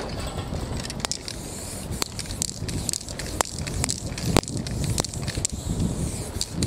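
Aerosol spray paint can hissing as paint is sprayed onto a canvas, with scattered sharp clicks and taps.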